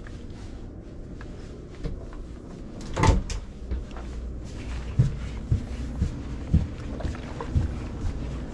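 A storage cupboard door is shut with a sharp knock about three seconds in. Soft thuds of footsteps follow, about two a second, climbing wooden stairs.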